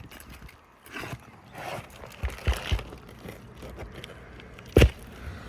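Roof snake working under asphalt three-tab shingles to pull the nails: scraping and rustling against the shingles, three knocks about two and a half seconds in, and one sharp, loud knock near the end.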